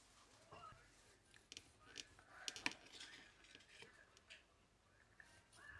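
A few faint clicks and light taps over near silence, with faint voices in the background.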